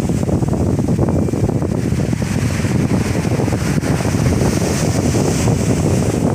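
Strong wind buffeting the microphone in a steady, loud rumble, over sea waves surging onto the beach.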